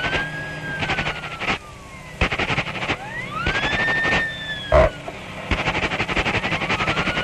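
Early cartoon storm sound effects: three whistled glides that rise quickly and sink slowly, imitating howling wind, over a fast rattling roll imitating rain, with one sharp crash about five seconds in.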